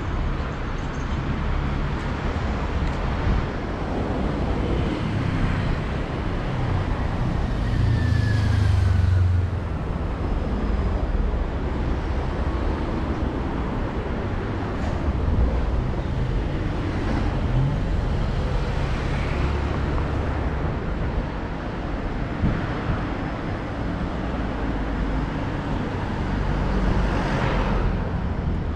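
City street traffic: a steady road rumble of cars going by, with a louder vehicle passing about eight seconds in and another near the end.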